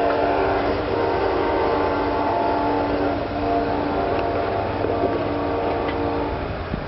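Amtrak GE Genesis diesel locomotive's horn sounding one long, steady chord, which cuts off about six and a half seconds in, with a low steady rumble underneath.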